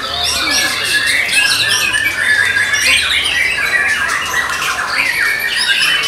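White-rumped shamas singing loudly and without pause, several birds at once: overlapping rich whistled phrases, rapid chattering trills and harsh notes.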